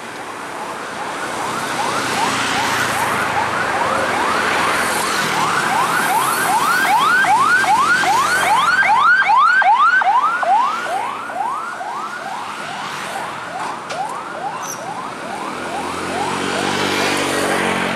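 A siren sounding a rapid yelp of rising sweeps, about three or four a second, growing louder and then fading as it passes, over busy road traffic. Near the end a heavy vehicle's engine grows louder as it approaches.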